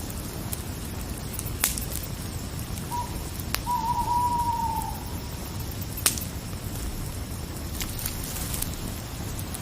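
Campfire crackling over a steady low rumble, with a few sharp pops. About three seconds in an owl hoots: a short note, then a longer one that falls slightly.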